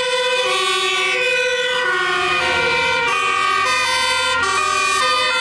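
Electronic fire-engine siren sounding steadily, switching back and forth between a high and a low note.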